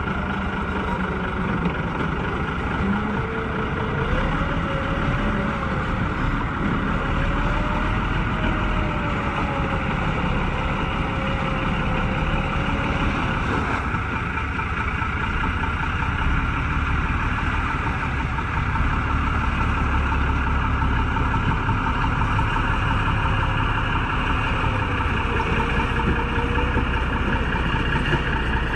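Engine of a tracked amphibious all-terrain vehicle running steadily as it crawls and floats through an icy river, an even drone with a faint wavering whine.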